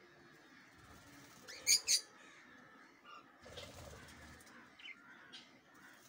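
Cockatiels in an aviary: two sharp chirps in quick succession, the loudest sounds, then about a second of wing flapping and splashing from a cockatiel bathing in a shallow water tray, with a couple of faint chirps after.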